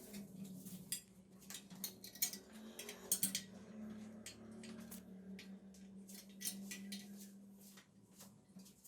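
Small metal parts clinking and scraping in an irregular run of light ticks, over a steady low hum.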